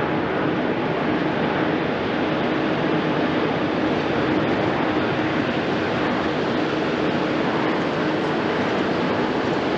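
Airbus A350-900's Rolls-Royce Trent XWB turbofans at takeoff thrust during the takeoff roll: a steady, even jet roar.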